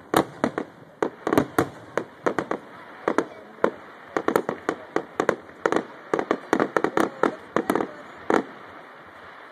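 Aerial fireworks display: a rapid, irregular run of sharp bangs from shells bursting overhead, many coming in quick clusters, easing off to a short lull near the end.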